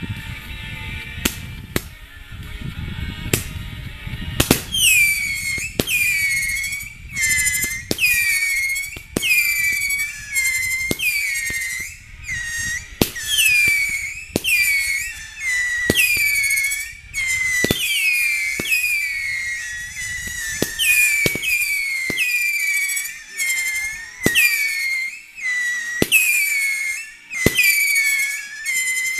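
Fireworks going off. For the first four seconds or so there is a low rushing with scattered pops. Then comes a string of whistling shots about a second apart, each a sharp pop followed by a whistle that falls in pitch.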